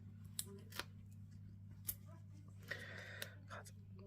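Faint clicks and a brief rustle of small cardstock pieces and foam adhesive dimensionals being handled, over a steady low hum.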